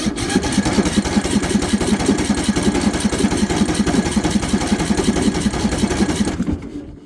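Craftsman LT3000 riding mower's electric starter cranking its engine, cold and without choke, with a steady chugging rhythm of about five compression strokes a second. It stops suddenly about six and a half seconds in without the engine ever catching. The battery is getting a little weak.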